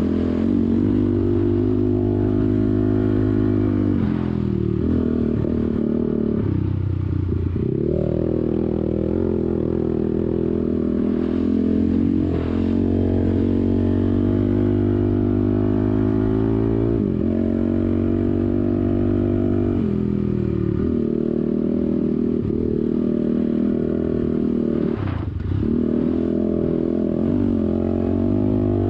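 Off-road vehicle engine running under load through sand dunes, its pitch climbing and falling as the throttle is worked, and it briefly drops off every few seconds before picking up again.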